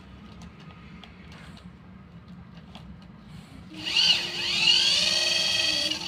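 Electric motor and gearbox of a 1:18 toy RC buggy spinning up with a rising whine about four seconds in, then running at a steady high whine for about two seconds, the car held in place by hand so the wheels spin without driving off.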